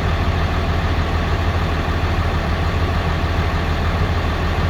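Farm loader's engine running steadily at an even speed, with a strong low hum.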